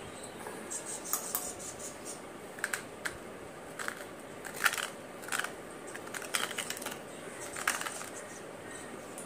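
Fingers picking and scraping at the hard, woody shell of a wood apple, making irregular small clicks and crackles, with the sharpest click about halfway through.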